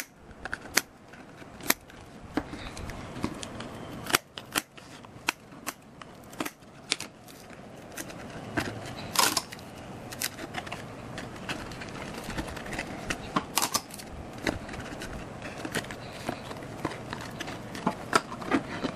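Hands at work on a handmade model ship: irregular sharp clicks and taps over light scraping and rustling of the material being handled.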